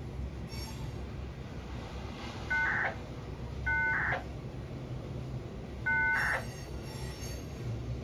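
Three short bursts of dial-type beeps, each a chord of steady tones ending in a brief squelch crackle, as from a two-way radio scanner picking up tone signalling. Under them runs a steady low rumble.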